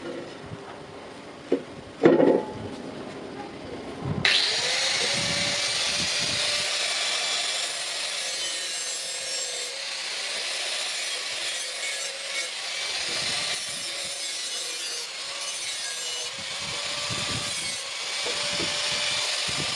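A single metal knock, then an electric grinder spins up about four seconds in and runs steadily with a loud hiss as it grinds the steel spade blade.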